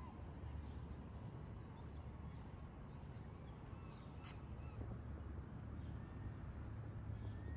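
Faint outdoor ambience: a steady low rumble with a few short, distant bird calls.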